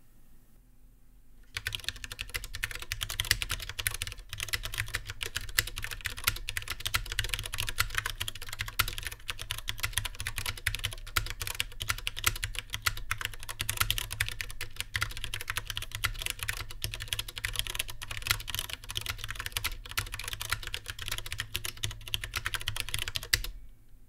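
Typing on a Mistel Barocco MD770 split mechanical keyboard with tactile Cherry MX RGB Brown switches, thick double-shot PBT keycaps and a metal mounting plate: a dense, unbroken clatter of keystrokes. It starts about a second and a half in and stops just before the end.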